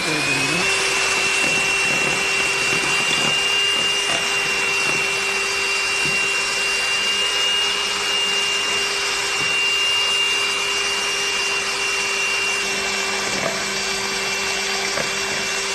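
Handheld electric mixer running steadily as it creams margarine and sugar until fluffy. Its whine rises just as it starts, then holds one pitch.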